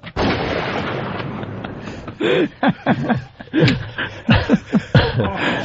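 A sudden loud rush of noise that fades away over about two seconds, then men laughing in short bursts.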